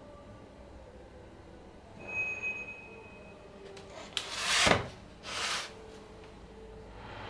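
Handling noise: two short rustling swishes about a second apart near the middle, the first the louder, with a faint brief squeak a little before them, as a hand moves at a plastic motor-oil canister.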